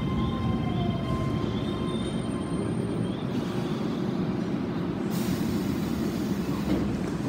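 Keio Line electric commuter train pulling in and braking to a stop. Steady high squealing tones and a falling whine fade out over the first two seconds above the rumble of the wheels. A hiss comes in about five seconds in as the doors open.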